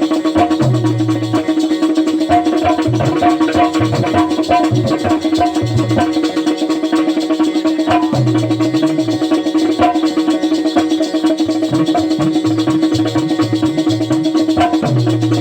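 Bundeli Rai folk music, instrumental with no singing: a held drone note runs throughout under a steady drum rhythm and a repeating melodic figure.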